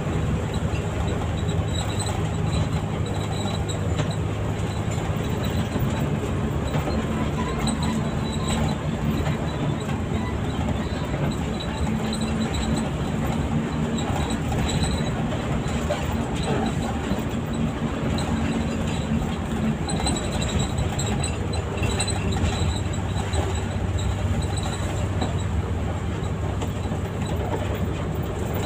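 Steady engine drone and road rumble inside a moving intercity bus. A stronger engine tone stands out for about ten seconds in the middle, from roughly eight to twenty seconds in.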